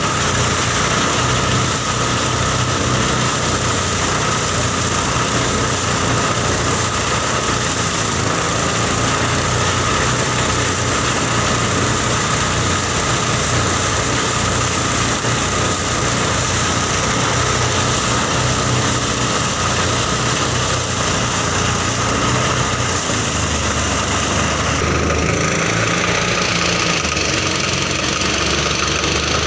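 New diesel engine running steadily while powering a rice threshing machine, its note shifting about three-quarters of the way through.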